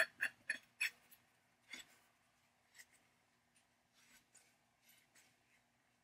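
Steel pipe leg being screwed by hand into the threaded socket of a cast iron forge pan: short metal-on-metal scrapes of the threads, several quick ones in the first second, then fainter, spaced-out scrapes.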